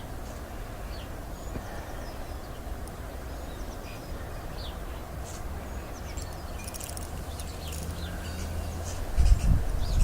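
Garden birds chirping and whistling, short high calls scattered throughout over a steady low rumble. About nine seconds in, a loud low rumble sets in, like wind buffeting the microphone.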